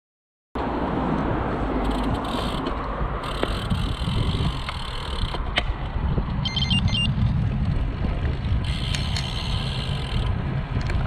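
Bicycle being ridden on the road: wind noise on the microphone and tyre-on-road noise, starting abruptly just after the beginning. A brief run of high beeps about six and a half seconds in.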